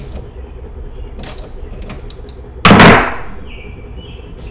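Hands handling battery cables and clamps at the engine: a few light clicks, then one loud knock a little before halfway through, with a short ringing tail.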